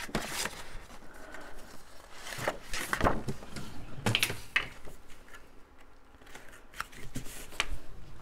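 Sheets of paper rustling and sliding as a pile of paper is sorted through by hand, with scattered light knocks and clicks.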